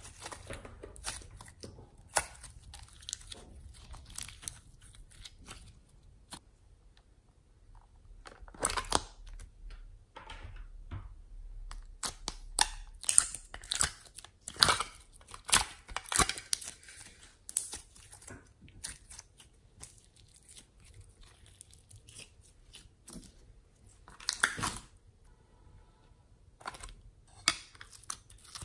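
Hands squeezing and kneading glossy slime mixed with foam clay, pressing it into plastic moulds: irregular wet pops, squelches and crackles.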